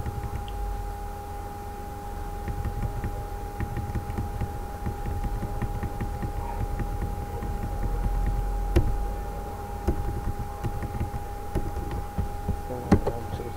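Steady background hum with a constant high whine and a low rumble, broken by a few sharp clicks, one about nine seconds in and one near the end.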